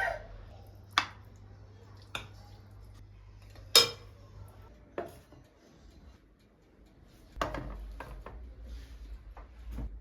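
Dishes and cutlery being handled: a series of separate clinks and knocks a second or so apart, the loudest about four seconds in, over a low steady hum.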